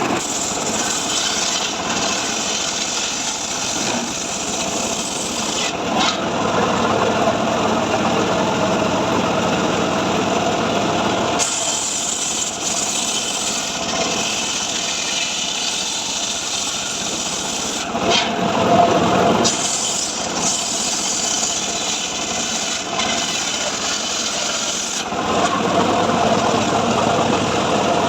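Engine-driven saw cutting dry mahogany timber, running steadily, with the sound changing every few seconds as the cut and the load change.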